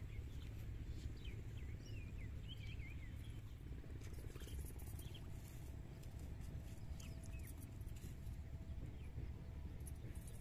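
Small birds chirping several times, mostly in the first few seconds and once more past the middle, over a steady low rumble of outdoor ambience.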